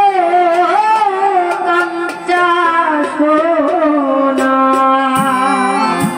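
A woman singing a Sylheti folk song into a stage microphone, holding long notes that bend and waver in pitch, over live instrumental accompaniment.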